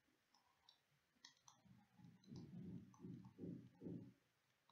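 Faint clicks and scratches of a stylus on a pen tablet as a word is written. There are a few quick light taps in the first second and a half, then a run of soft strokes.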